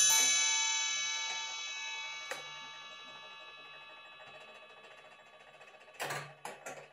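Nineteenth-century bracket clock chime: its last notes ring out and die away slowly over several seconds. Near the end comes a knock and a few clicks as the minute hand is turned by hand.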